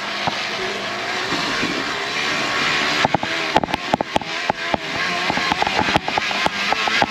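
Plastic bottle fixed to a bicycle frame being flicked by the turning wheel's spokes, making a motorbike-like rattle. A steady rushing noise of riding comes first; about three seconds in, a rapid, irregular clicking clatter starts.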